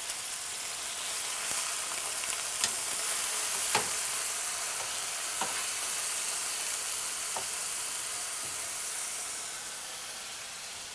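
Chunks of beef chuck roast searing in hot olive oil in a frying pan: a steady sizzle with a few sharp clicks, easing slightly near the end.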